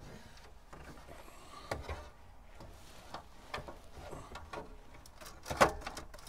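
Plastic dash trim bezel around a 2005 Chevrolet Silverado's gauge cluster being pressed into place by hand, its retaining clips snapping in with a few separate sharp clicks and knocks, the loudest near the end.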